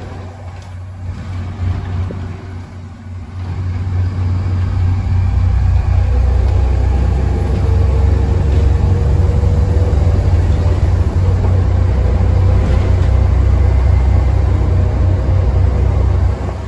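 Volvo B7TL double-decker bus's rear-mounted six-cylinder diesel engine heard from inside the bus: softer for the first few seconds, then working hard under load from about four seconds in as a deep, steady drone, with a faint whine rising in pitch partway through.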